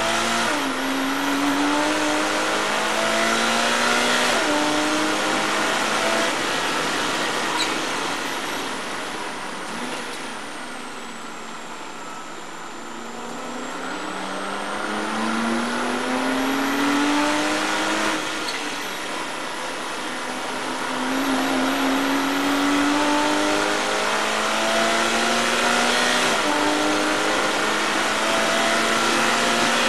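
Porsche Cayman race car's flat-six engine heard from inside the cabin at racing speed. It climbs in pitch and drops back at each upshift, eases off and winds down for a slower corner around the middle, then pulls hard up through the gears again.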